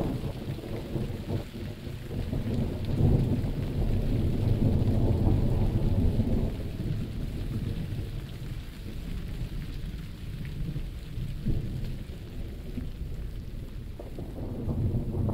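Thunder rumbling under steady rain. A long low rumble swells about three seconds in and rolls on for several seconds before fading, and more rumbling builds near the end.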